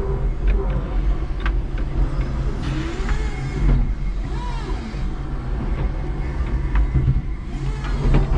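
A 5-ton electric forklift's motors whine, rising and falling in pitch as the truck drives and maneuvers, over a steady low hum. A few light clicks and knocks come through as well.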